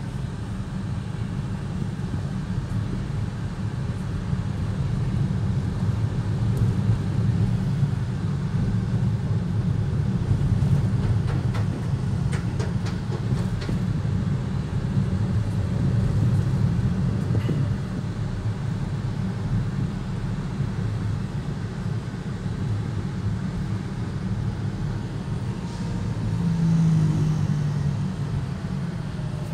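Steady low engine and road rumble of a Suzuki S-Presso heard from inside its cabin while driving, with a short louder hum near the end.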